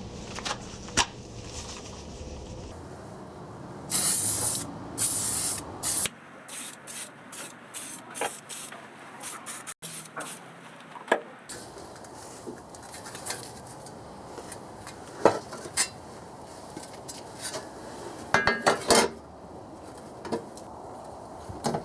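MIG welder tack-welding thin 0.8 mm sheet steel with fine 0.6 mm wire. The hissing weld bursts come as one longer run about four seconds in, then a quick series of short tacks, and another cluster near the end, with sharp metallic clinks between them.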